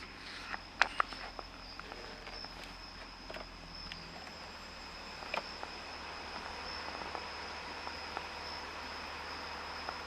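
Insects trilling in one steady high note throughout, with a few sharp clicks and taps in the first few seconds.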